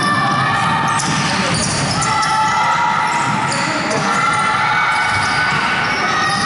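Basketball bouncing on a hardwood court during play, with players' voices, echoing in a large sports hall.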